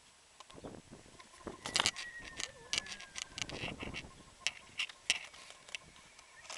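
Irregular sharp clicks and taps with some rustling, and a faint high squeak sliding downward about two seconds in.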